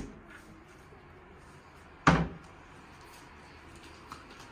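Mini-fridge door pushed shut with a single thump about two seconds in, followed by a couple of faint clicks near the end.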